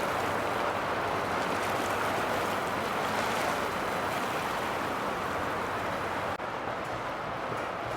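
Boats running on a river: a steady rush of motor and water noise, which changes abruptly about six seconds in.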